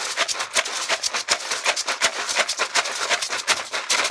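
Homemade shaker made from a clear plastic bottle with a dry filling, shaken hard in a quick, even rhythm of about five strokes a second, each stroke a crisp rattle.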